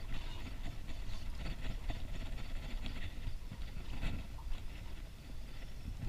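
Sounds aboard a small fishing boat at sea: a steady low rumble with many small, irregular knocks and clatters.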